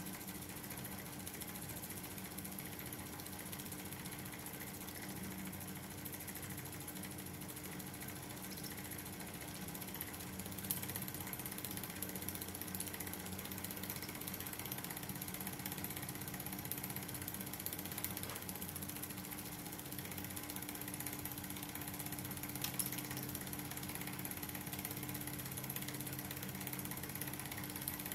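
Wilesco D2 miniature live-steam engine, with a single-acting oscillating brass cylinder on a candle-heated boiler, running steadily on steam. It gets a little louder about a third of the way in, with a couple of brief sharper clicks.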